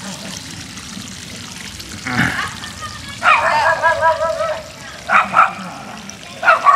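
A dog yapping: a rapid run of high-pitched yaps about three seconds in, then two short barks twice more near the end.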